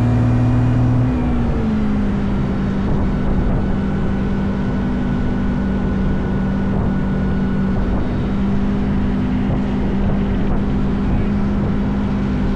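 An engine running steadily, its note dropping slightly between one and two seconds in.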